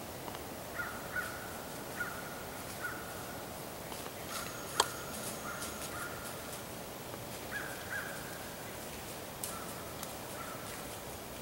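Crows cawing, a string of short calls in loose runs. A single sharp click about five seconds in.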